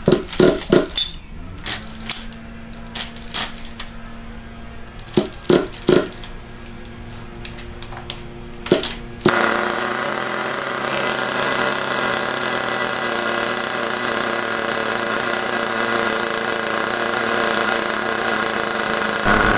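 Stock .21 nitro engine of an Exceed Madfire RC buggy being primed, with a scatter of sharp clicks and knocks. About nine seconds in it fires suddenly and keeps running at a steady idle; the engine is still being broken in.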